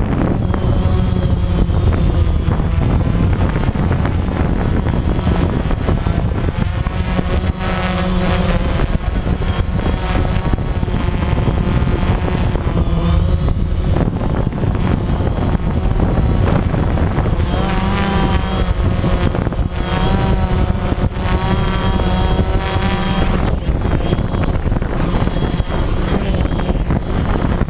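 DJI Phantom quadcopter's electric motors and propellers, heard close from a camera mounted on the drone itself: a loud, steady whir whose pitch wavers up and down as the motors change speed while the drone descends and lands.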